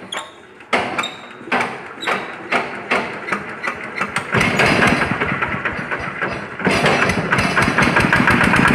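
Small single-cylinder diesel engine of a hand tractor being hand-cranked, with about two knocks a second of the cranking, then catching just past four seconds in and picking up into a fast, steady running beat near the end. It starts after its fuel injection system has been bled.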